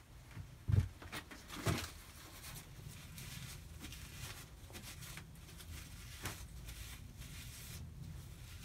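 Hands working the controls on a small lathe's saddle and apron: two light metal knocks in the first two seconds, then faint rubbing and small clicks over a low steady hum.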